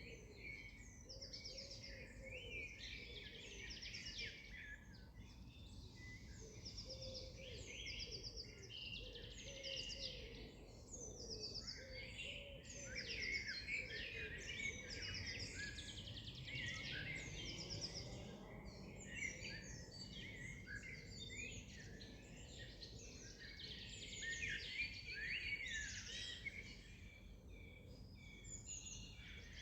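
Dawn-chorus-style birdsong: many birds singing at once in a dense, continuous stream of high chirps and trills, with a lower call repeated about once a second underneath.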